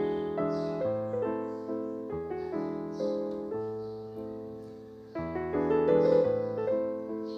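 Background piano music: a gentle melody of notes that ring and fade, swelling louder again about five seconds in.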